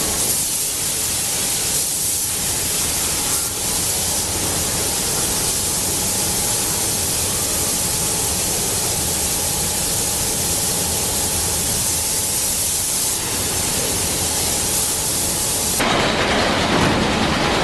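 Paint robot's spray head hissing steadily as it sprays paint inside a car body in a paint booth. About 16 seconds in the sound changes to a fuller, louder rushing noise.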